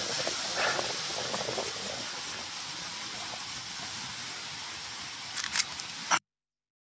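Steady hiss of rain falling around a handheld phone microphone, with a few clicks and handling knocks. Two sharper clicks come near the end, and then the sound cuts off abruptly about six seconds in.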